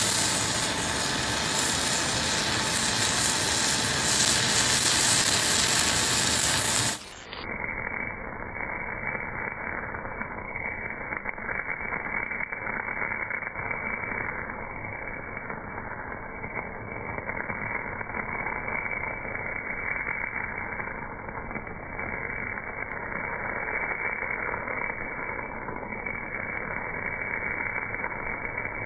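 MAG welding arc on cast iron at 280 A, giving a loud, steady crackling hiss. About seven seconds in it changes abruptly to a duller, deeper and quieter noise, the slowed-down sound of the slow-motion footage.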